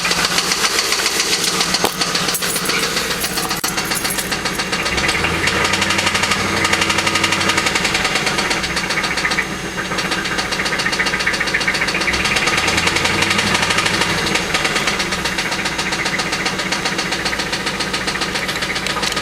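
GM LS1 5.7-litre V8 running with a rapid, even knocking tap, which the owner takes for a spun bearing. The engine note rises briefly a couple of times.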